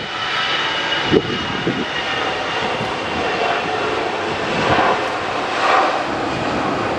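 Jet airliner engines running: a steady rush of engine noise with a thin high whine, swelling briefly about two-thirds of the way in.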